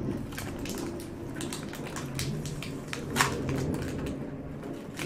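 Stiff plastic toy packaging crinkling and clicking as it is handled and pulled at, with a sharper crack about three seconds in.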